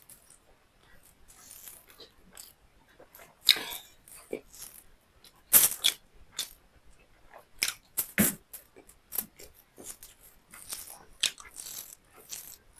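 Close-up eating sounds: a person chewing beef liver and rice, with irregular wet mouth clicks and smacks, a few of them louder near the middle.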